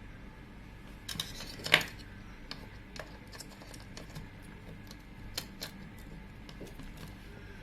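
Irregular light clicks and taps of small tools and parts on a phone being taken apart, with a louder cluster of clicks a little under two seconds in, over a steady low hum.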